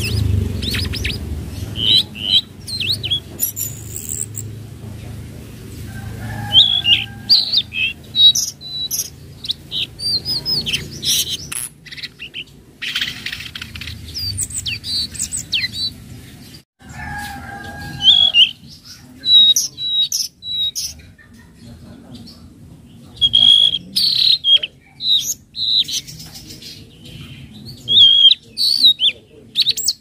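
Caged tledekan laut (mangrove blue flycatcher) singing: phrases of quick, high chirps and twittering trills, some with lower whistled notes, separated by short pauses.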